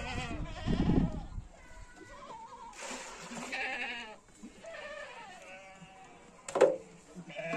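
Several goats bleating, with calls overlapping and wavering in pitch. There is a short, sharp, loud sound about six and a half seconds in.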